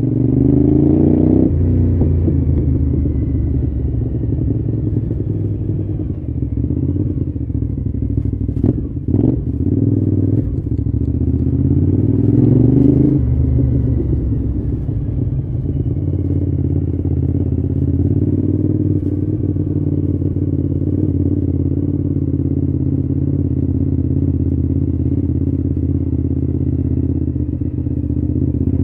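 Cagiva Raptor's V-twin engine running at low road speed, its pitch rising as it accelerates just after the start and again around twelve seconds in. A few sharp clicks come around nine seconds in.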